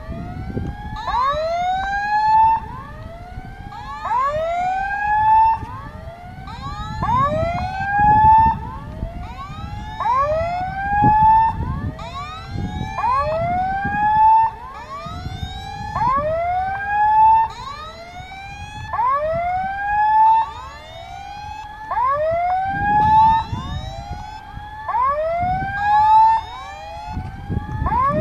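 Railway level-crossing warning signal sounding: an electronic rising whoop repeated about every second and a half, with a fainter second whoop falling between each pair, the alarm that warns road users of an approaching train.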